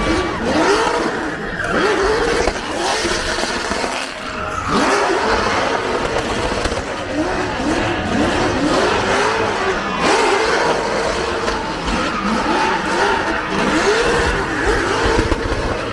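Drift car engine revving hard and dropping back over and over, its pitch rising and falling about once a second, over a steady hiss of tyre noise from the car sliding.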